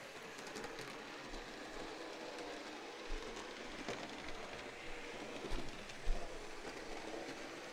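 HO scale model Thomas locomotive running along the track pulling a boxcar: a faint, steady rolling noise of small wheels on rail, with a few light clicks.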